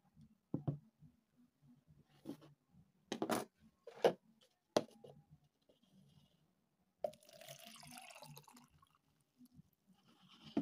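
Several sharp knocks and taps of containers being picked up and set down on a plastic tabletop, then water poured from a plastic jug into a plastic cup for about a second and a half, starting about seven seconds in. The knocks are the loudest sounds.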